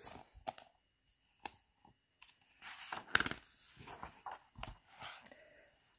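A page of a hardcover picture book being turned and handled: soft paper rustling with a few light taps scattered through.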